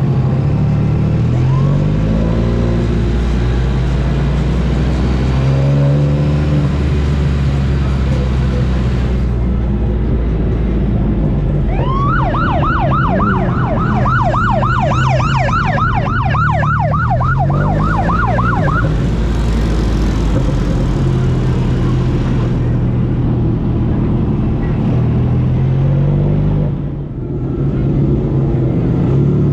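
Motorcycle engines running and revving, rising and falling in pitch. In the middle, a siren on a fast yelp cycle, about four rises a second, sounds for about seven seconds.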